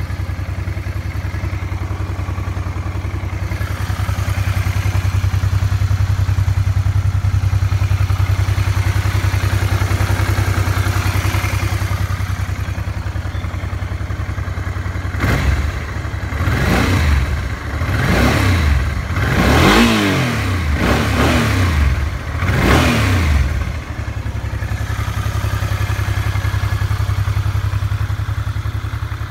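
Honda XL650V Transalp's V-twin engine idling steadily. About halfway through it is revved several times in quick succession, each blip rising and falling in pitch, then it settles back to idle.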